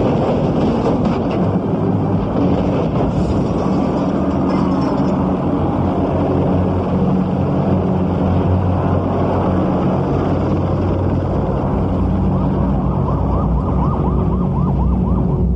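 Vehicles running with sirens wailing in a loud, dense film sound mix. Rising and falling siren tones are clearest near the end.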